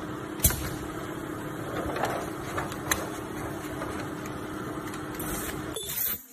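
Ultrasonic plastic welding machine standing by with a steady hum and a low tone, with two sharp clicks, about half a second and three seconds in, as the film is laid in place; the sound cuts off suddenly near the end.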